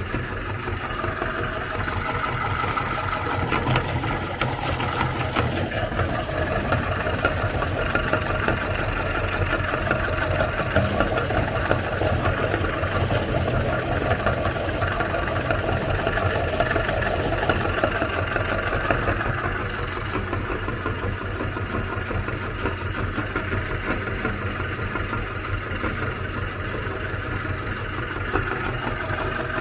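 Electric meat grinder running steadily, its motor humming as it grinds Oreo cookies.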